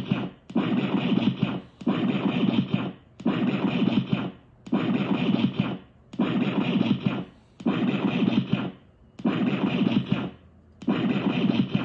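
DIY sampler built on an ISD1820 record/playback chip playing one recorded sample over and over from its four-step sequencer, like a looper: about eight repeats roughly a second and a half apart, each about a second long with a short gap between.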